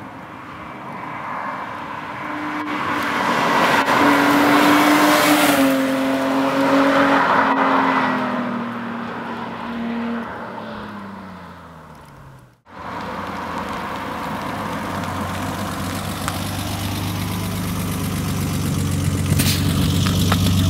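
A car drives past on the road, its engine note growing loud and then falling in pitch as it goes away. About two-thirds of the way through, the sound cuts to the steady engine drone and road noise heard inside a moving car.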